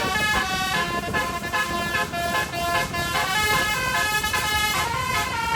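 Bus telolet horn, a set of twelve roof-mounted air-horn trumpets driven by an electronic telolet module, playing a fast melody in quick stepped notes with several tones sounding together.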